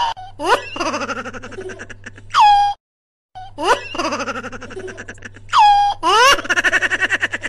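A comedic sound clip: a rising cartoon boing-like glide, then rapid high-pitched giggling, ending on a sharply falling whistle-like tone. It cuts out briefly about three seconds in and then plays through again.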